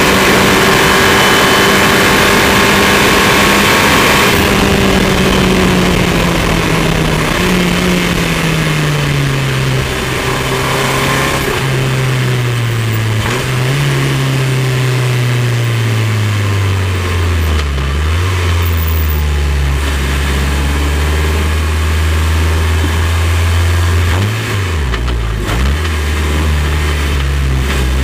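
KTM X-Bow R's turbocharged Audi 2.0-litre four-cylinder engine slowing down, heard from the open cockpit with wind rushing past at first. The engine note falls in steps, rising briefly with each downshift, and settles to a low steady rumble after about 17 seconds, with one short blip of revs near the end.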